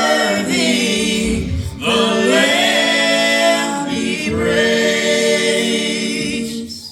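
A family gospel group singing in harmony, holding long notes through two phrases with a brief breath about two seconds in; the singing stops just before the end.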